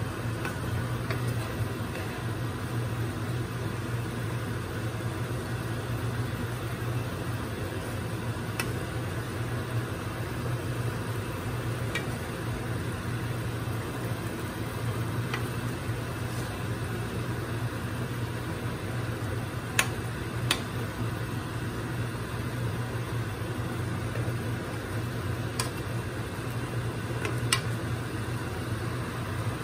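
Pork steak simmering in its sauce in a nonstick frying pan: a steady bubbling hiss over a steady low hum. A metal spoon clinks against the pan several times as sauce is spooned over the meat and stirred, most sharply about twenty seconds in and again near the end.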